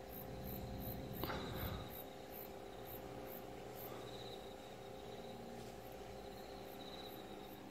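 Faint outdoor ambience: insects chirping in short, evenly spaced pulses over a steady low hum, with a single bump a little over a second in.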